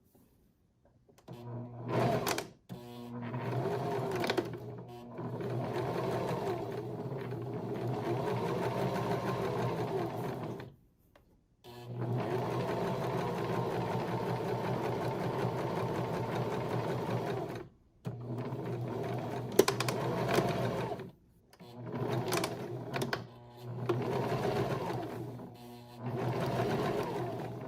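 Sewing machine stitching a seam in cotton mask fabric. It runs steadily for several seconds at a time and stops briefly between runs: two long runs of about six to nine seconds, then several shorter ones.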